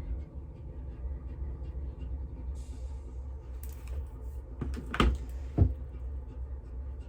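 Two sharp knocks about half a second apart, about five seconds in, like small objects being set down or a case being closed, over a steady low hum.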